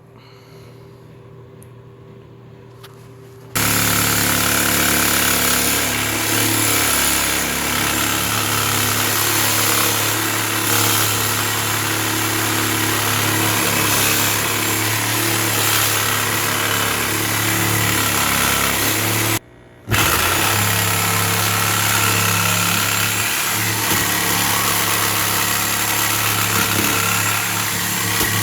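Power saw cutting through a fiberglass bathtub wall. It starts about three seconds in and runs steadily, stops briefly past the middle, then starts again and runs on.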